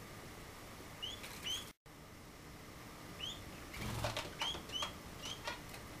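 Small pet cage birds (canaries and finches) giving short, quick upward-gliding chirps: two about a second in, then several more in the second half, with a brief flutter of wings about four seconds in. The sound cuts out completely for a moment just before two seconds.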